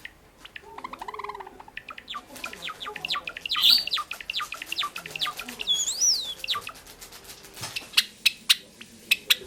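Male Java sparrow singing: a fast run of dry clicks and chips, with a warbled note about a second in and a high rising-then-falling whistle about six seconds in.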